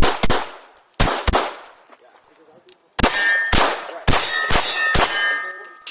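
Pistol shots fired at steel targets, each hit answered by the plate's ring. There are two quick pairs of shots, then a faster run of about five, and the last plate's ring hangs on after the final shot.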